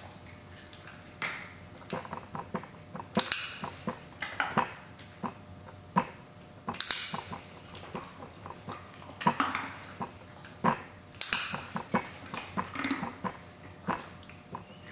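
Dog nosing and licking at a small metal object held in a person's hand: irregular small clicks and light metallic clinks, with three louder hissing bursts about four seconds apart.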